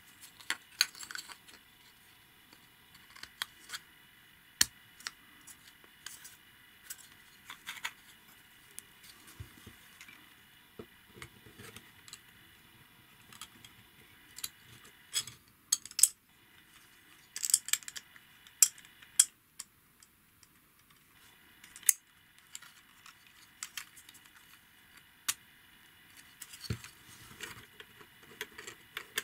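Small 3D-printed plastic engine parts clicking and knocking as they are handled and pressed together by hand: irregular sharp little clicks, some louder snaps now and then. A faint steady high whine sits behind them and drops out for a few seconds in the middle.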